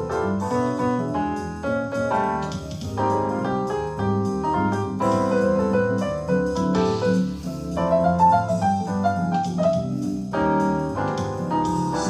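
Electronic keyboard played with a piano sound: a jazz tune, with chords and a melody line over them changing throughout.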